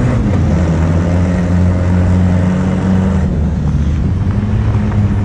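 Toyota 22R four-cylinder engine of an ice-racing pickup running hard, heard from inside the cab; the revs dip slightly at the start, then hold steady.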